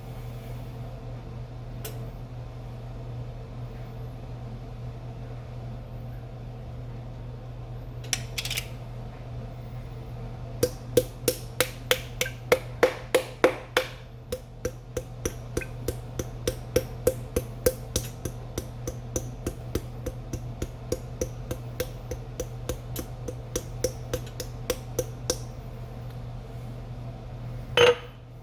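Hard kitchenware knocking repeatedly against a pot, about three knocks a second for some fifteen seconds, loudest at first and then lighter, with one louder single knock near the end.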